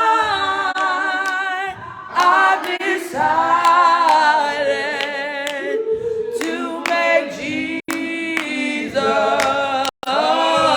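Unaccompanied gospel hymn singing, slow, with long-held notes and vibrato. The sound drops out for an instant twice near the end.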